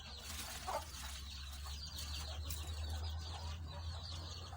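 Chickens in a poultry house making quiet calls, one short call standing out about a second in, over a steady low hum.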